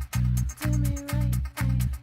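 Electronic dance music in an instrumental gap: a pulsing bass beat about twice a second, with light ticks on top and a held synth note.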